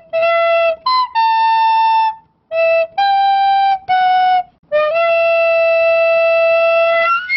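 Intro jingle of a flute-like wind instrument playing a short tune of separate held notes, the last one long and sliding up in pitch near the end.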